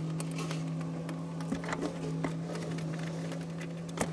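Light metallic clicks of bolts and a socket extension being handled while the spindle mounting bolts are threaded in by hand, the sharpest click near the end, over a steady low hum.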